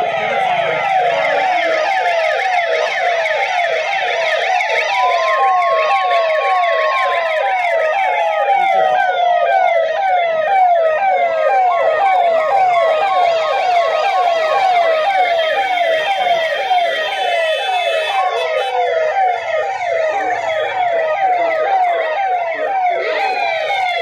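Sirens sounding as a public alert for a mask-awareness drive: one siren yelps in rapid, evenly repeating falling sweeps while a second wails more slowly, rising, holding and falling, twice.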